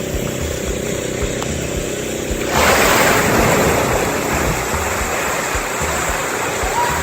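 A motor running steadily, then about two and a half seconds in a sudden loud rush of splashing water that fades over a few seconds.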